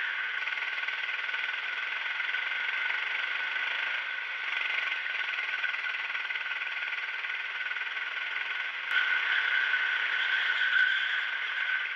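Go-kart engine running steadily as the kart laps, heard thin and without low end from an onboard camera; it gets louder about nine seconds in.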